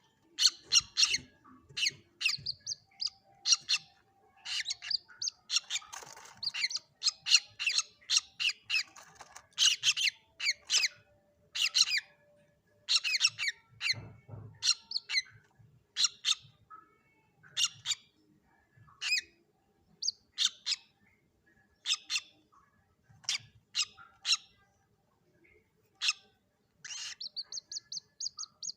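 Common moorhen chicks calling: many short, sharp, high peeps in irregular bursts, with a quicker run of notes near the end.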